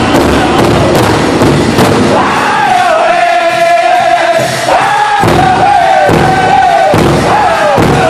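Powwow drum group singing a two-step song around a big rawhide drum: steady drum strokes under massed voices for about two seconds. Then the drumming drops back and a high, held vocal line takes over, sliding down at the end of each phrase.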